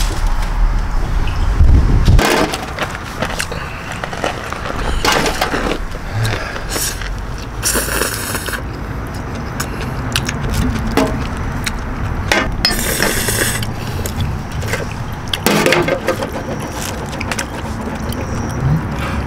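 A soju bottle's screw cap twisted open with a sharp crack, then tableware clicks and scrapes: chopsticks, a glass soju bottle and a shot glass knocking on a metal tray of noodles. Two longer noisy rushes come about a third of the way in and again past the middle.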